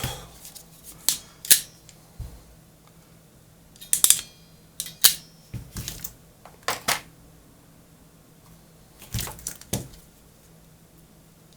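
Sharp metallic clicks and snips of small hand tools and parts being worked, coming singly and in short clusters and stopping about ten seconds in.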